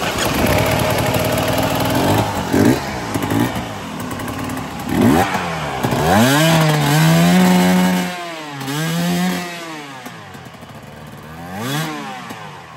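GasGas dirt bike engine revving up and down in repeated bursts, held high for about two seconds midway and rising once more near the end, over the steady rush of creek water.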